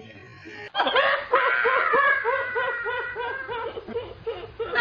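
A woman laughing hard in high-pitched, rapid repeated bursts of about three a second, starting about a second in, with a long squealing stretch in the middle.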